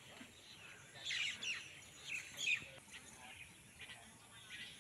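Songbirds chirping, with clusters of short, high, downward-sweeping calls about a second in and again around two and a half seconds in.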